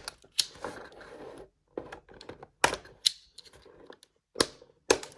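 Plastic toy packaging being handled as an action figure is freed from its restraints: a handful of sharp clicks and snaps, uneven in spacing, with soft rustling between.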